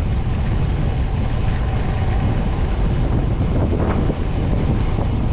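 Wind rushing over the camera microphone of a cyclist riding a road bike at speed: a steady, loud, low rumbling rush with no distinct events.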